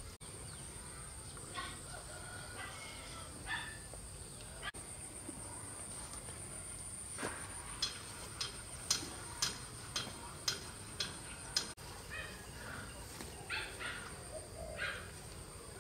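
Chickens clucking, over a steady high drone of insects, with a run of short sharp sounds about two a second in the middle.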